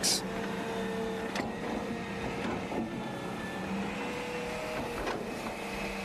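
Excavator's diesel engine running steadily as it digs, a constant hum with a couple of held tones and a few faint knocks.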